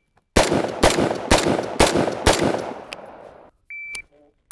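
Six rifle shots fired in quick succession about half a second apart, the echo trailing off after the last. An electronic shot timer then gives one short, high start beep near the end.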